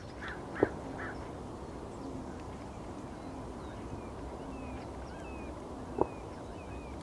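Outdoor ambience with birds calling: a few short quack-like calls in the first second and faint chirps later on. Two sharp knocks stand out, one just after the start and one near the end.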